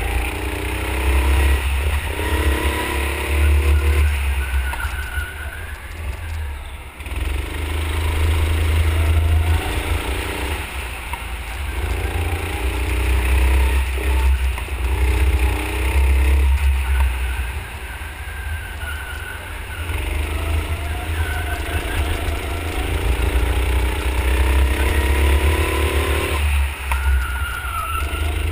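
Go-kart motor heard from an onboard camera, its pitch climbing for a few seconds at a time as the kart accelerates and dropping back in between, about six times over, with a heavy low rumble throughout.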